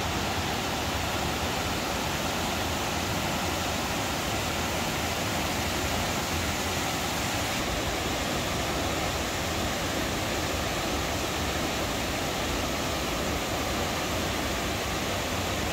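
Jackson Falls, the cascades of the Wildcat River, rushing steadily: an even, unbroken wash of falling water.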